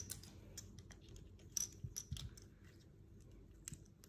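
Small plastic building bricks being handled and pressed together on a marble tabletop: a scattering of faint clicks and light clatters of plastic pieces.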